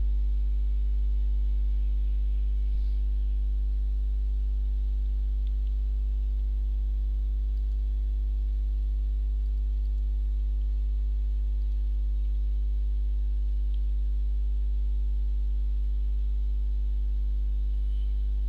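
Steady electrical mains hum in the recording: a constant low buzz with a ladder of overtones, holding unchanged throughout.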